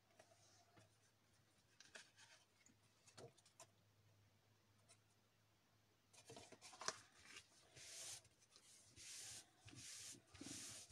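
Hands rubbing and sliding card stock on the work mat, smoothing a freshly glued paper panel: a few faint ticks, then from about halfway a run of short scuffing strokes.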